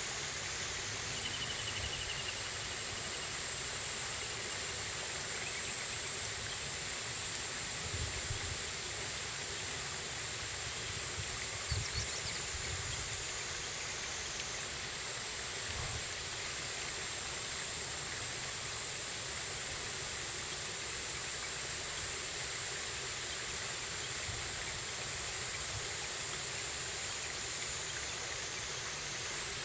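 Steady rushing of a river's current, with a few soft low thumps about eight and twelve seconds in.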